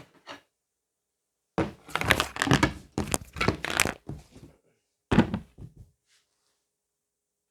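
Close-miked eating sounds: a dense run of knocks and crunches for about three seconds, then another short burst about five seconds in.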